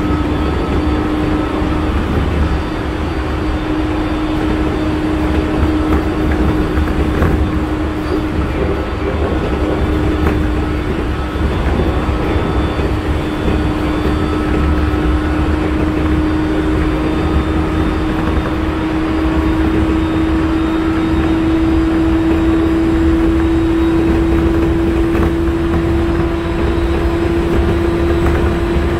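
Interior running sound of a JR East 701 series electric train: the whine of its MT65 traction motors, one steady tone that climbs slowly in pitch as the train gathers speed, over the low rumble of wheels on rail.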